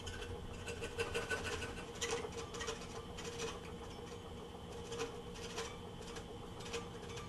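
DeWalt scroll saw running with a steady hum, its fine number 2 blade cutting into thin wood in short, irregular scratchy passes as the piece is fed and turned.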